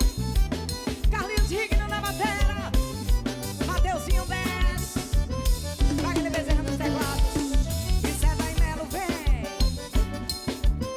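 Band music with a steady drum-kit beat and bass under a bending lead melody line.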